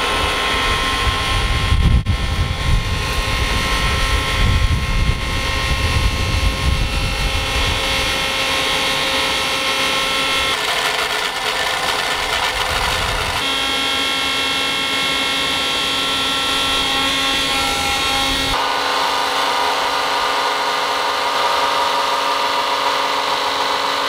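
Electric blender motor running with a steady whine, its pitch changing abruptly a few times as the speed shifts, over a rough low rumble in the first few seconds.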